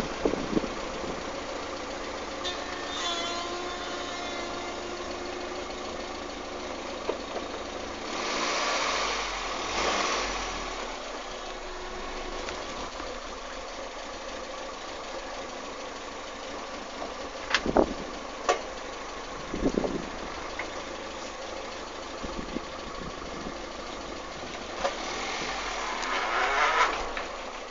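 Peugeot 106 with its engine running, giving a squeak, with two swells in level and a few sharp clicks about two-thirds of the way through.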